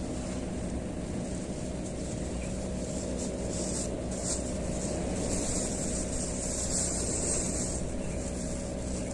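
A steady low motor drone with a constant hum and a high hiss that swells for a few seconds midway.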